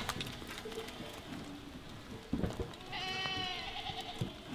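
A young goat bleating once about three seconds in: a high, slightly wavering call lasting about a second. A couple of soft knocks come just before and after it.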